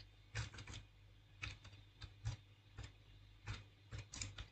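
Faint keystrokes on a computer keyboard, typing slowly and unevenly, about a dozen separate key clicks.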